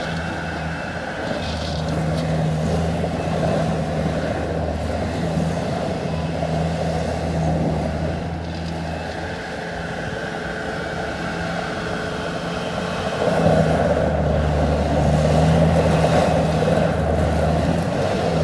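Bobcat skid steer engine running steadily while the machine is worked. It gets louder about thirteen seconds in, as it revs up or takes on load.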